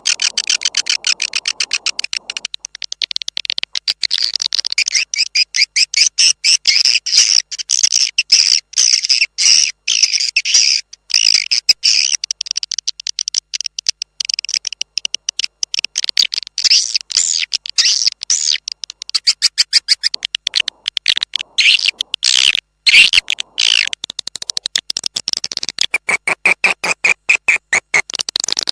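Recorded swiftlet calls: dense, rapid chirping and twittering, the kind of call recording played in swiftlet houses to lure the birds in.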